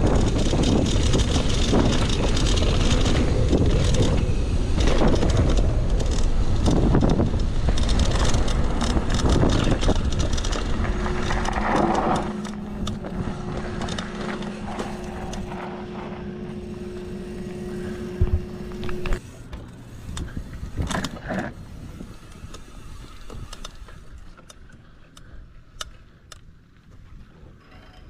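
Mountain bike riding down a trail: loud rush of wind and tyre noise on the bike-mounted microphone for the first dozen seconds. It then eases off into a quieter stretch with a steady hum and scattered clicks and knocks near the end.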